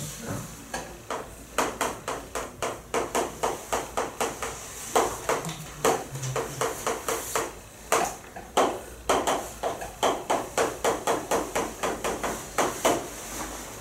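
Chalk tapping and scratching on a chalkboard as an equation is written: a quick run of sharp taps, several a second, broken by short pauses.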